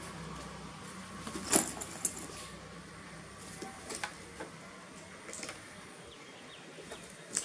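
Strap and plastic clip being handled and fastened: scattered light clicks and rustles, the sharpest about a second and a half in.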